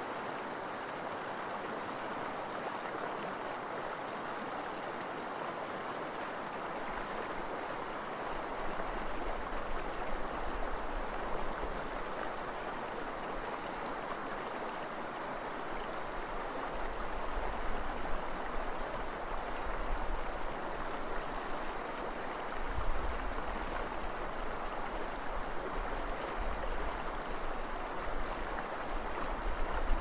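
Eel River running fast and shallow over gravel: a steady rushing of water. From about eight seconds in, a low rumble comes and goes beneath it.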